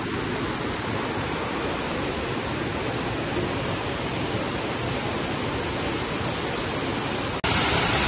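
Steady rushing roar of a waterfall's falling water. About seven seconds in it cuts abruptly to a louder, brighter rush.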